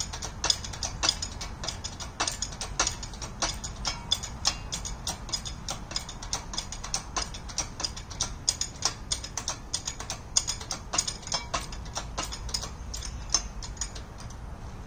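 Hand-pumped hydraulic engine hoist lifting a fence post's concrete footing out of the ground: quick metallic clicks from the pump handle, a few each second, stopping near the end.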